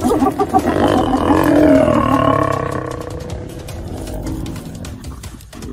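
Lion growling: a pitched, wavering call that starts with fast pulses, is loudest about two seconds in, and fades away by the middle.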